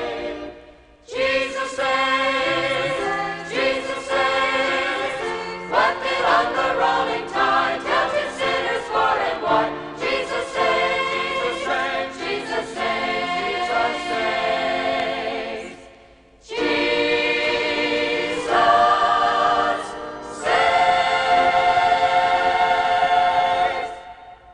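Choir singing a Christian gospel song, phrase by phrase with two brief pauses between phrases. The song's final chord is held and then stops near the end.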